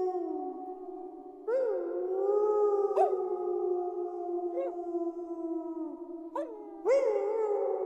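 A pack of wolves howling together in long overlapping howls. Each howl opens with a quick upward swoop and then holds its pitch. New howls come in about a second and a half in, around three seconds in, and twice near the end, over a steady held tone.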